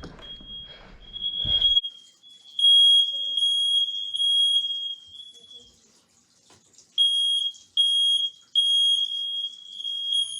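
Interconnected household smoke alarms sounding in test mode: a high-pitched, piercing tone beeping in pulses. It drops away for about a second near the middle, then comes back.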